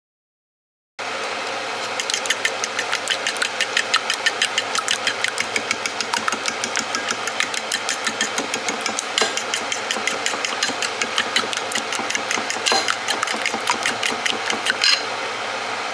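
Raw eggs being beaten with a metal utensil in a ceramic bowl: a fast, steady run of light clinks, about five or six a second, starting about a second in.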